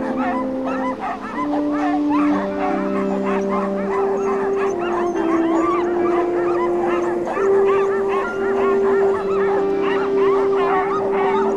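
A team of harnessed sled dogs barking, yipping and howling all at once in a dense, continuous chorus. Under it runs music with long held notes that change pitch every second or two.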